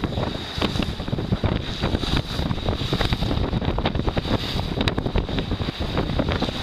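Wind buffeting the microphone over the rush and splash of water along the hull of an 11 metre one design yacht under sail, a steady rumble broken by frequent crackles.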